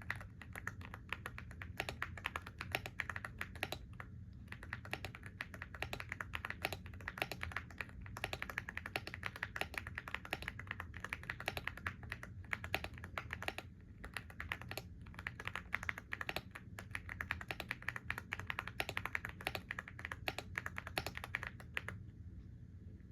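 Fast, continuous typing on a computer keyboard: a dense run of key clicks with a few brief pauses, stopping about 22 seconds in. A steady low hum sits underneath.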